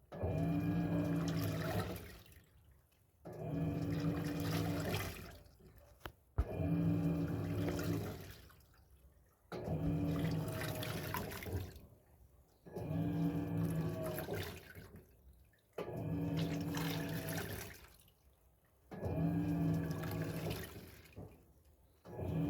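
Electrolux 6 kg washing machine agitating a load of towels in water: the motor hums and the water sloshes in strokes of about two seconds, one every three seconds or so, with short pauses between.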